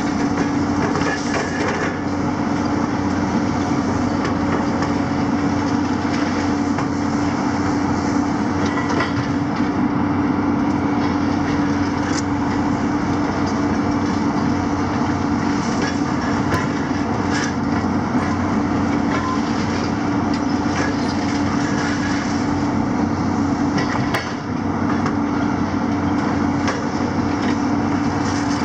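Hydraulic demolition excavators, a JCB and a Hitachi 250, running steadily with a constant droning hum from engine and hydraulics, over a continual clatter and crunch of concrete and metal rubble being worked by their grabs.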